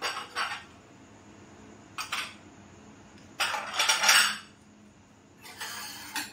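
Steel kitchen utensils clinking and clattering against each other and a shelf as they are handled, in four separate bursts, the longest and loudest about three and a half seconds in.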